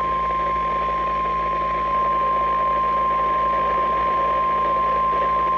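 NOAA Weather Radio warning alert tone: a single steady high tone near 1050 Hz, received over a weather radio with a constant background hiss, signalling that a warning is about to be read.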